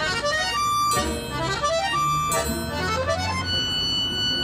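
Folk-instrument orchestra of plucked strings and accordions playing live: quick rising runs of notes come again and again, then the ensemble holds a sustained chord near the end.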